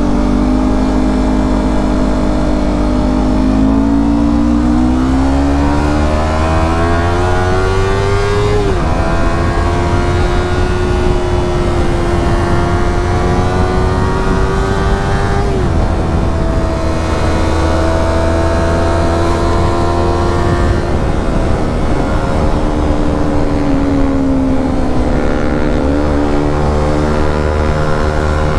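Yamaha R25 parallel-twin engine through a Proliner TR1R slip-on exhaust while riding: the revs climb, then drop sharply at two upshifts, about nine and sixteen seconds in. The engine holds steady between them, eases off, and picks up briefly near the end.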